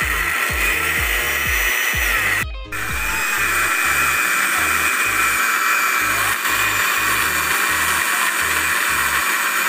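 Electric countertop blender running at speed, pureeing raw vegetables into a paste. It has a steady motor whine, cuts out briefly about two and a half seconds in, then runs on. Background music with a steady beat plays underneath.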